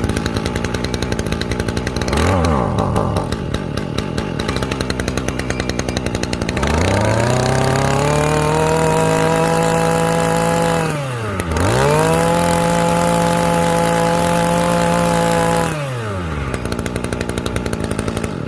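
Used Ryobi brush cutter's small petrol engine running on test. It idles with a quick blip about two seconds in, then revs up to a high, steady full-throttle whine. It dips briefly and revs up again, then drops back to idle near the end.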